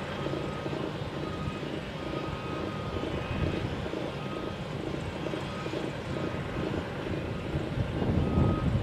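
Diesel engines of heavy construction machinery running, with a reversing alarm beeping about once a second. Near the end the engine noise grows louder as a wheel loader comes close.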